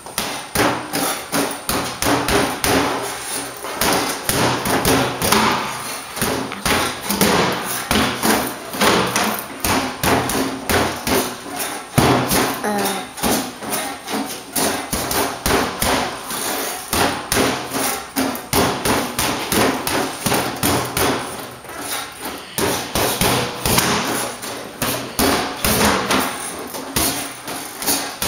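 Boxing gloves jabbing a Protocol freestanding reflex bag: a steady run of sharp smacks, about three a second, as the ball springs back on its flexible stem.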